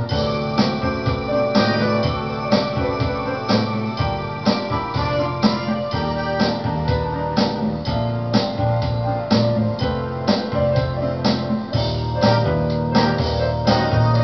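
Instrumental passage of a song: keyboard chords over a drum kit keeping a steady beat, with no singing.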